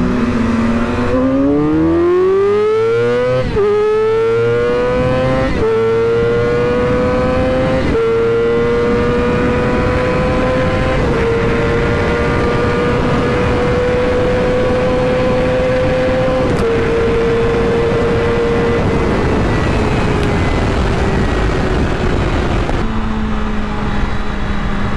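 Motorcycle engine accelerating hard through the gears: the pitch climbs and drops sharply at each of four upshifts in the first eleven seconds. It then holds a steady high note at speed and eases off near the end to a lower, steady note. Wind rush runs under it throughout.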